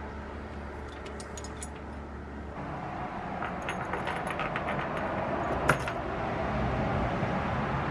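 Small steel leghold trap and its chain being handled, with light metallic clinks and jangles of chain links and trap parts, and one sharper metal click about three quarters of the way in.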